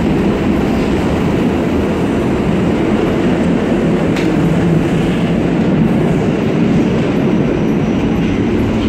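New York City subway car running through a tunnel, heard from inside: a steady rumble of wheels on rail, with a single faint click about four seconds in.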